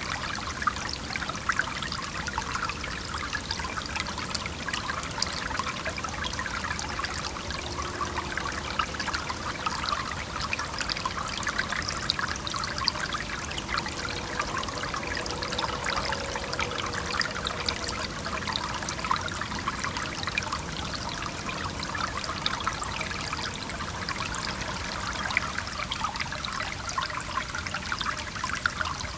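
Small stream flowing and burbling over rocks, a steady splashy trickle. Faint distant traffic hum underneath.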